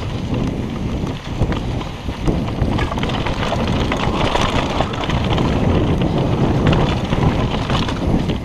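Wind buffeting the microphone over the crunch of mountain-bike tyres rolling fast on a dry, rocky dirt trail, with frequent small clicks and knocks from the bike rattling over the bumps.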